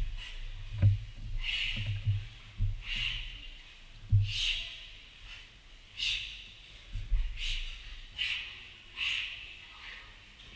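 A man hauling a heavy rope hand over hand, breathing out in short, sharp hisses with each pull, about once every second or so, with dull thumps in between.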